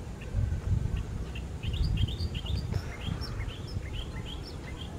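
Small birds chirping, a quick run of many short high chirps that crowds together in the middle, over a low uneven rumble.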